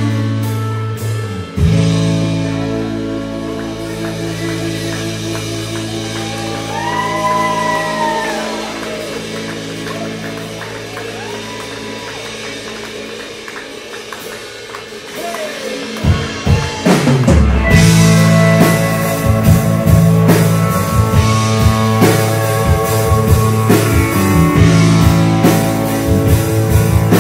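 Live rock band playing an instrumental passage: held electric guitar chords with gliding slide-guitar notes over them, then about sixteen seconds in the drums and full band come in, much louder.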